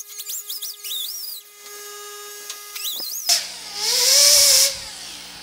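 Small air die grinder with a Roloc sanding disc working a sheet-metal panel. Its high whine wavers up and down in pitch as the disc is pressed on, then steadies, and it gets loud with a rush of air and grinding from a little past three seconds to nearly five.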